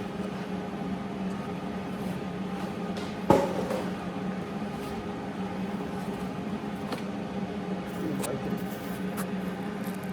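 A steady low hum throughout, with one sharp knock about three seconds in that rings briefly, and a few light clicks later on.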